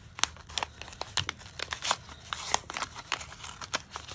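Paper envelope being handled and opened by hand, its paper crinkling and rustling in many quick, irregular crackles.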